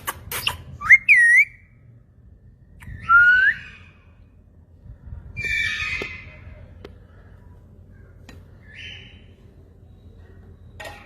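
Ringneck parrot whistling: a few short rising whistles, the loudest about a second in, then a harsher, rougher call around the middle and a faint short call later.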